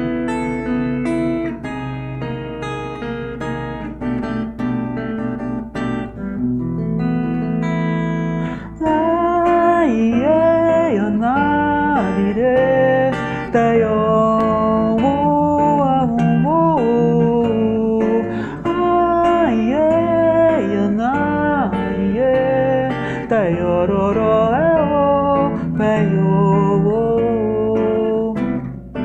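Acoustic guitar played through effects pedals: picked notes and chords. About nine seconds in, the music gets louder as a sustained melody line that slides between notes comes in over the guitar, lasting until near the end.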